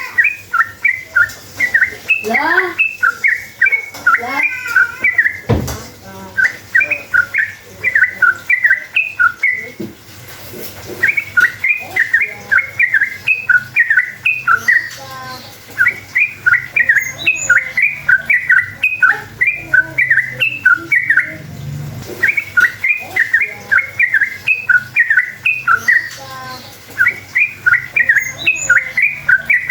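Yellow-vented bulbul (cucak trucuk) singing a long, rapid chattering song: loud phrases of quick, repeated sharp notes, each phrase lasting a few seconds, with short pauses between them. This is the 'ropel' song used as a lure to make other trucuk birds answer.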